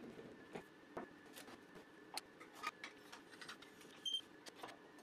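Faint, scattered clicks and clinks of hand tools and small metal parts being handled on a router table while the router bit is set up, with one short metallic ring about four seconds in.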